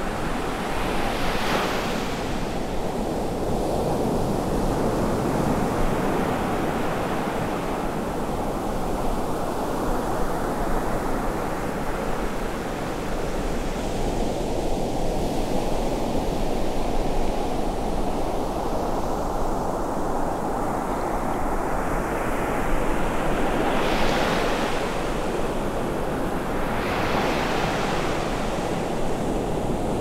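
Ocean surf breaking and washing up a sandy beach in a steady, swelling rush. A louder breaking crest comes about a second in, and two more come near the end.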